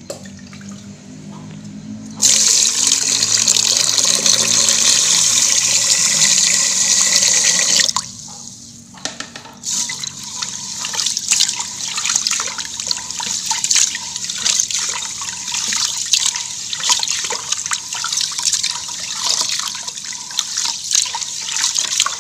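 Tap water running into a rice-cooker pot of rice for about six seconds, starting and stopping suddenly. Then a hand swishes and rubs the rice in the water in an irregular sloshing, to rinse off the starch.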